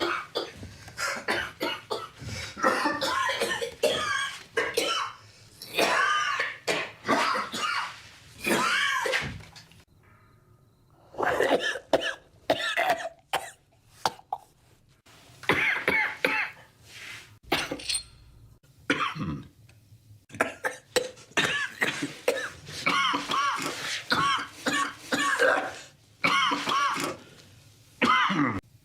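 A man coughing in a series of fits, bout after bout with brief pauses between them.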